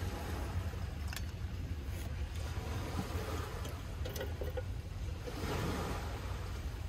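Steady low rumble of wind and surf by the shore, with a few light metal clicks about a second apart as a wire lantern hanger is handled and set into the corner of a metal lunch box.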